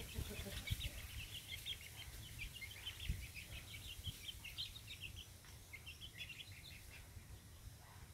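Small birds chirping: many short, high-pitched chirps in quick succession, thinning out after about six seconds, over a low rumble.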